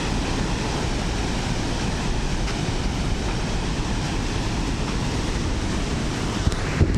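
Heavy ocean surf breaking against rocks, a steady rushing wash of water, with wind rumbling on the microphone.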